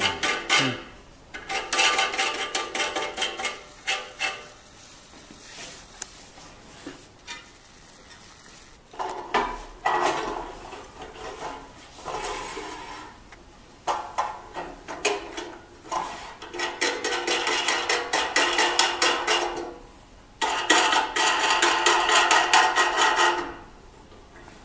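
Metal rattling and clattering in several stretches of a few seconds each, with a ringing tone, as bolts are turned with a hex key on the metal bracket of a screen printing press's platen.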